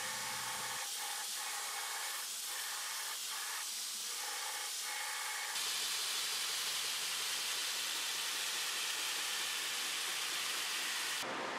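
Belt grinder grinding the shoulders of a 52100 steel knife blade held in a file guide: a steady hiss of steel on the abrasive belt, a little louder about halfway through.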